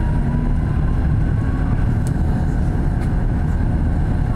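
Tatra T3 tram running, heard from inside the car: a steady low rumble from the wheels and running gear. A thin whine rising in pitch, as the tram picks up speed, fades out about a second and a half in, and a couple of light clicks follow.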